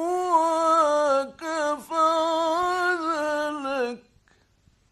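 A male reciter's voice in mujawwad (melodic) Quran recitation, drawing out one long ornamented phrase on held, wavering notes. It breaks briefly about a second and a half in and ends about four seconds in.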